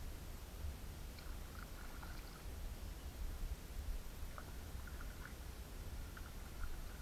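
Kayak paddle dipping and dripping in calm creek water, a scatter of faint small splashes in two bursts, over a steady low rumble.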